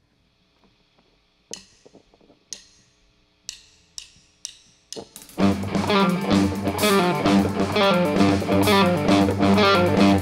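A drummer's count-in: six sharp clicks, first about a second apart and then twice as fast. Then a live rock band comes in loud with distorted electric guitars, bass guitar and drum kit.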